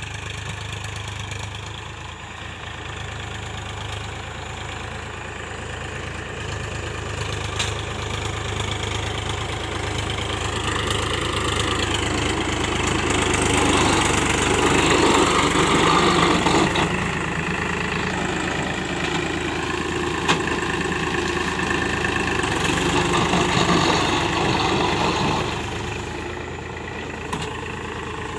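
Powertrac Euro 50 tractor's diesel engine running steadily. It grows louder and rougher in two stretches, about halfway through and again a little later.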